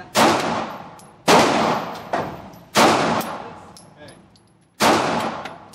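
Walther P99C pistol fired four times at an uneven pace, one to two seconds apart. Each sharp report trails off in the long reverberation of an indoor range.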